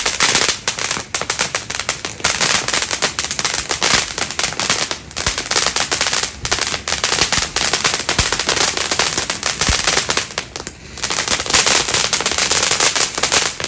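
Fireworks going off: a long, rapid, unbroken string of loud cracks and pops, like a string of firecrackers, that stops abruptly at the end.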